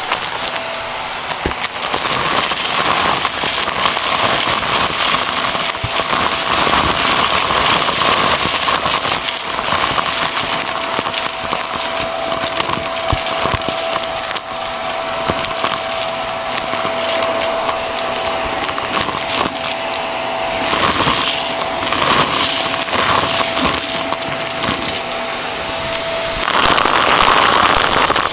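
Hart vacuum running with a steady motor whine while its wand sucks up small debris from carpet, the pieces crunching and rattling up the tube in a dense stream of clicks.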